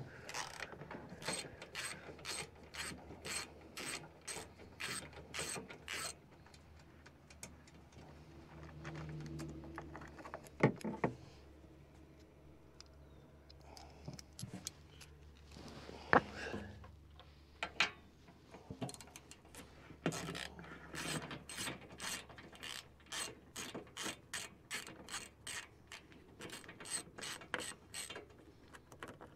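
Hand ratchet wrench clicking on its backstrokes as it loosens the 10 mm bolts of the underbody plate, about two to three clicks a second. It comes in two long runs with a quieter stretch midway that holds a few single knocks.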